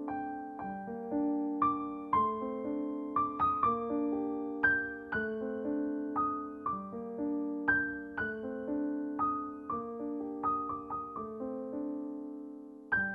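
Background piano music: a slow, gentle melody of single struck notes that ring and fade over held lower chords.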